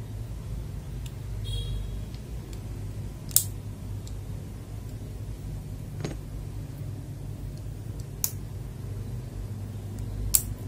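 Sharp clicks, four loud ones about two seconds apart with a few fainter ticks, from mechanical keyboard switches being handled, over a steady low hum.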